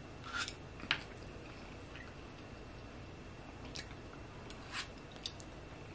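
A person chewing mouthfuls of soft, sauced spiral pasta fed in with chopsticks: faint, with about five short wet clicks and smacks scattered through.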